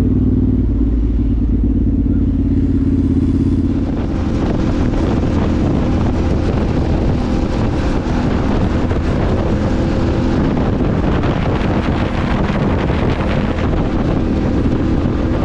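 Engine of the vehicle being ridden running steadily; about four seconds in, a rushing wind and road noise comes up over it and stays.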